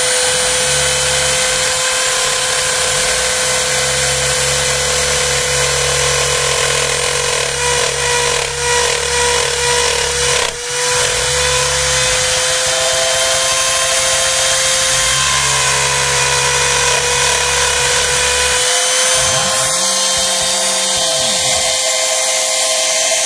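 Home-built CNC router cutting plywood: the router motor's steady high whine as the bit carves, with the low hum of the axis stepper motors starting and stopping in stretches as the gantry moves. The builder says the machine shudders a fair amount, which he puts down to the weak mount holding the router.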